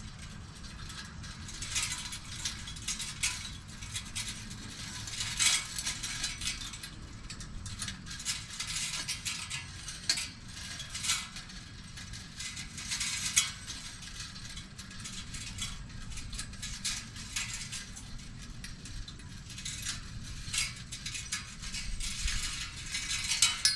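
Metal chains of a portable disc golf basket clinking and jingling as they are clipped onto the basket's hooks. The clinks come in irregular bursts throughout.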